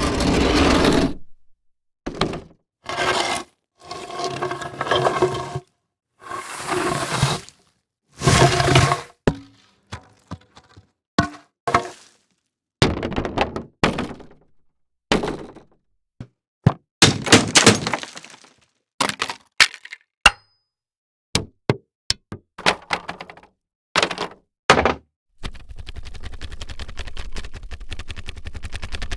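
A series of separate impact sound effects, one after another with short silent gaps: crashes and breaking hits, some with a ringing tail, thuds, and sharp single knocks and clicks. Near the end a continuous rapid rattle begins.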